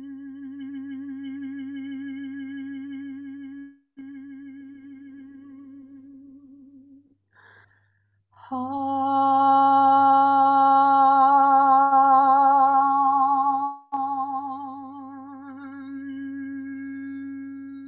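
A woman's voice toning one long sustained note with a slight vibrato, as vocal healing work. The note breaks briefly for breath, pauses about seven seconds in, then comes back much louder and brighter for about five seconds before softening again into a quieter hum.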